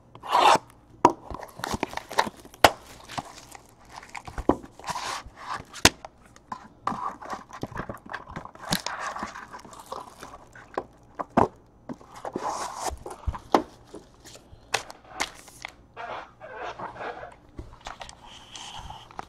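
Clear plastic shrink wrap crinkling and tearing as a trading-card hobby box is unwrapped, mixed with sharp clicks and taps as the foil-wrapped card packs are handled and set down in a stack.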